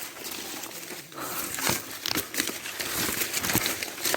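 Footsteps crunching through dry leaves and brush, with many irregular crackles of twigs and leaf litter.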